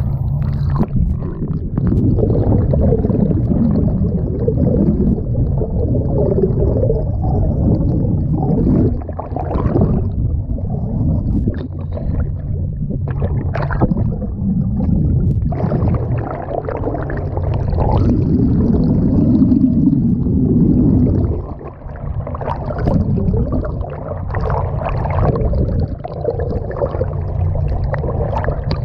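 Seawater rushing, splashing and gurgling around a camera held at the waterline beside a moving boat's hull, the sound turning muffled and bubbly as it dips under the surface. Under it runs the steady low hum of the boat's engine.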